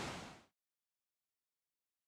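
Rushing water of the Rhine Falls, an even full-range wash, fading out about half a second in and then cutting to complete silence.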